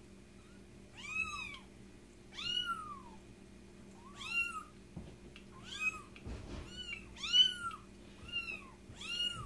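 Young kitten meowing over and over while being washed in a sink for fleas: about eight high cries, each rising then falling in pitch, the loudest one near the end.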